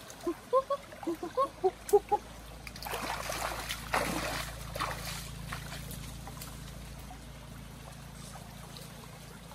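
Shallow forest stream trickling, with a quick run of short chirps during the first two seconds and rustling of branches and leaf litter around the middle as people push into the brush on the bank.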